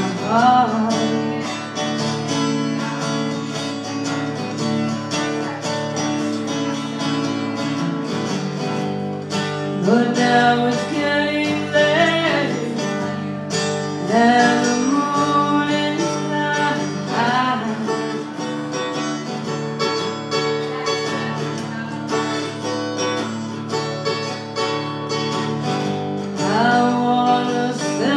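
Acoustic guitar played at a steady pace, with sung vocal phrases coming and going over it.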